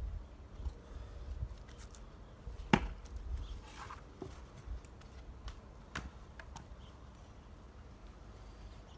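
An axe splitting firewood: one sharp crack of the blade striking a log a little under three seconds in, followed by a few lighter knocks.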